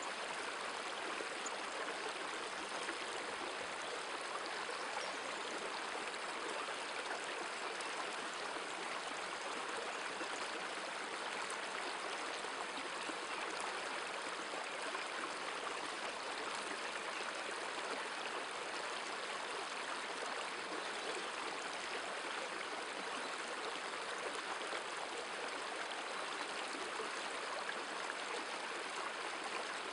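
Shallow river current rushing steadily over a rocky riffle.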